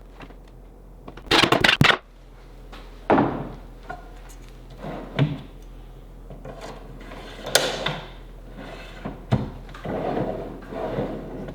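Knocks and clatter of metal drawer slides being handled and screwed into a wooden cabinet box: a quick run of sharp rattling clicks about a second in, then scattered single knocks and thunks.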